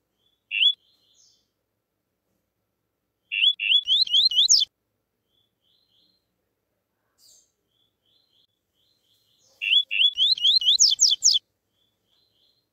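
Male double-collared seedeater (coleiro) singing the 'tuí tuí' song: one short note about half a second in, then two phrases, about four and ten seconds in, of quick repeated upslurred notes that speed up and climb in pitch, with faint soft notes between.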